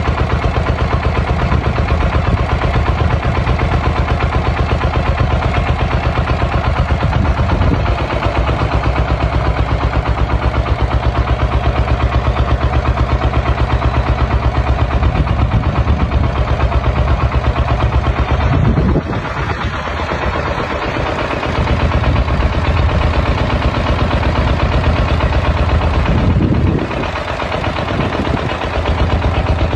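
Homemade tractor's engine running steadily with a rapid, even thumping; its level and low rumble drop briefly about two-thirds of the way through and again near the end.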